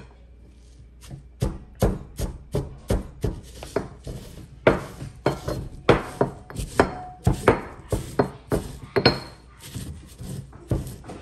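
Granite mortar and pestle pounding dried red chili flakes: repeated stone-on-stone knocks, about two or three a second, starting about a second in.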